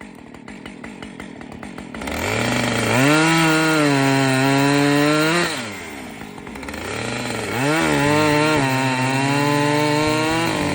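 Gas chainsaw idling, then revved up to high speed and held for a couple of seconds twice, dropping back to a lower speed in between.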